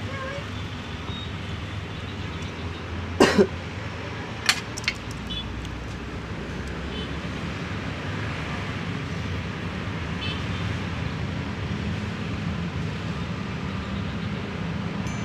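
A steady low rumble of background noise, with a pair of sharp knocks about three seconds in and two lighter clicks about a second later.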